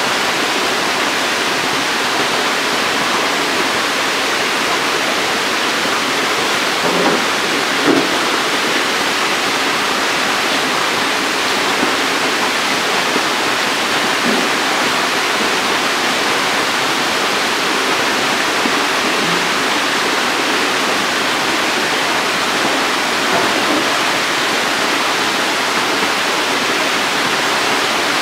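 Steady rush of water spraying and splashing into a shallow tank of catfish fry, with a couple of soft knocks about seven and eight seconds in.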